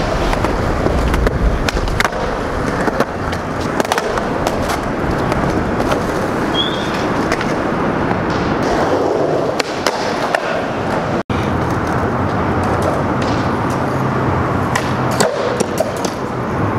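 Skateboard wheels rolling on concrete, with repeated sharp clacks of the board hitting the ground. The sound drops out for an instant about eleven seconds in.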